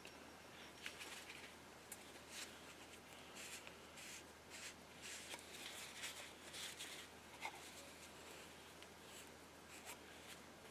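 Faint, irregular rubbing and rustling of a paper towel wiping the inside edge of an aluminum muzzle brake with acetone, in short scattered strokes.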